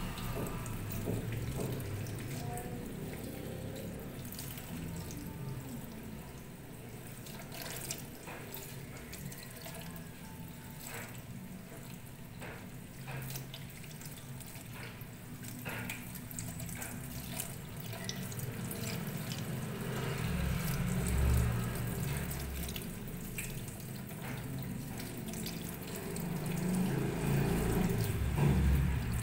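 Kitchen tap running into a plastic colander in a steel sink while raw chicken feet are rubbed and rinsed under the stream. Small splashes and clicks of handling break the steady flow of water.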